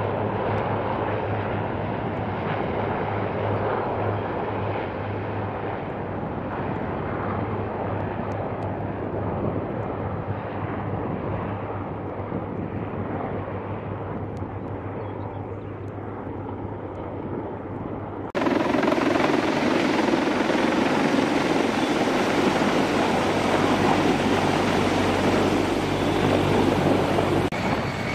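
CH-53 heavy-lift helicopter's rotors and turbines running, slowly fading as it flies off. About two-thirds of the way through, the sound switches abruptly to a much louder, closer helicopter hovering overhead.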